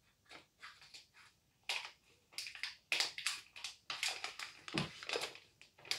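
Plastic cookie wrapper crinkling and crackling as it is cut with scissors and worked open by hand. The crackles are sparse at first and come thick and fast from about two seconds in.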